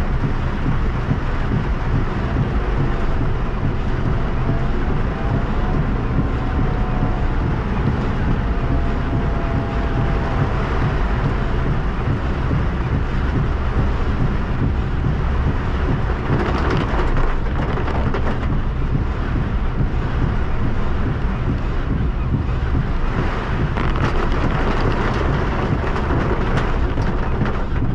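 Heavy rain beating on a car's roof and windshield as it drives, over a steady low rumble of the car and the wind. The rain hiss swells twice in the second half.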